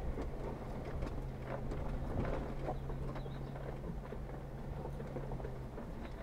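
Jeep Wrangler Rubicon's engine running low and steady while crawling over rocks, with irregular knocks, creaks and clicks from the tyres, suspension and body working over the rough trail, heard from inside the cab.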